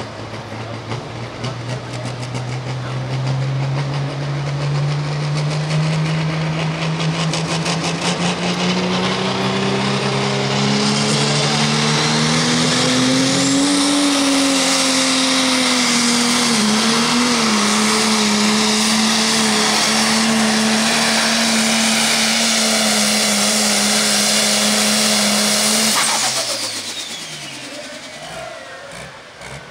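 John Deere Pro Stock pulling tractor's turbocharged diesel engine at full power dragging the weight sled, its note climbing for the first half, then holding steady and loud with a high turbo whine. About 26 seconds in the power is cut and the engine and turbo wind down quickly.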